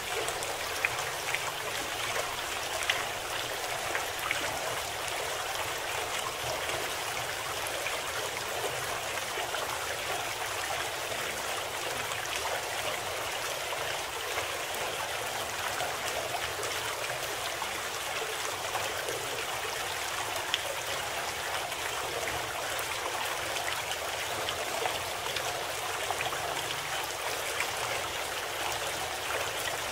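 Steady running water, like a flowing stream, with a few small splashes.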